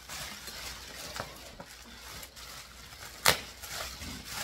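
Rustling of a white plastic protective sleeve being pulled off a soundbar in its box, with a few faint clicks. One sharp knock about three seconds in is the loudest sound.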